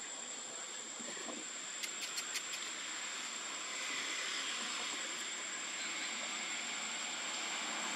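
Steady outdoor hiss with a thin, constant high-pitched whine running through it, four quick sharp clicks about two seconds in, and the hiss growing a little louder about halfway through.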